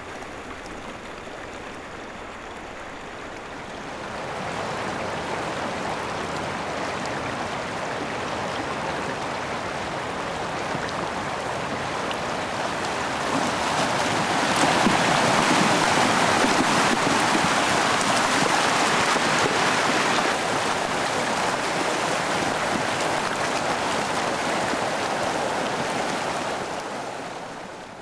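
Yosemite Creek running as a slurry of frazil ice and water, a steady rushing noise. It grows louder about four seconds in, is loudest in the middle and fades away near the end.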